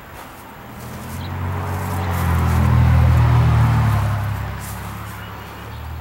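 A motor vehicle driving past: a low engine hum with tyre noise swells to a peak about three seconds in, then fades away.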